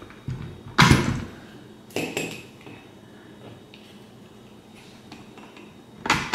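A few sharp clicks and knocks as gauge units are pulled from and pressed into a BMW E30 instrument cluster, the loudest about a second in, another about two seconds in and one near the end.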